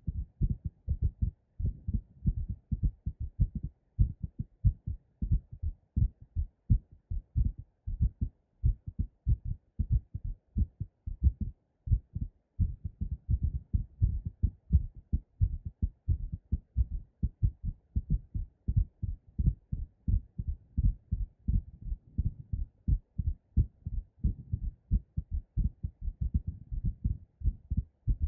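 Two human heartbeats played at once, one in each ear: a fast, pounding heartbeat recorded after squats, and a heartbeat recorded while holding the breath with pressure applied. Together they make a dense, uneven run of dull low thumps, the two rhythms overlapping.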